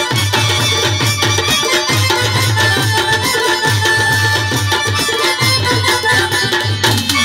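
Live Pashto folk music amplified through PA speakers: an instrumental passage of rhythmic tabla strokes under held harmonium notes, with no singing.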